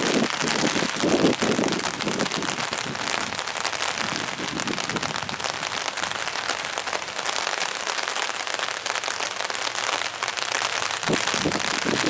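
Steady crackling patter of rain falling on hard surfaces near the microphone, with a few low gusty rumbles of wind on the microphone.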